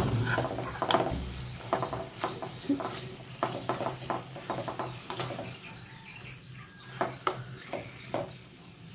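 Metal spoon scraping and clicking against a ceramic nonstick frying pan while pork chops sizzle in butter. The spoon clicks are busiest in the first half and grow sparser and fainter toward the end.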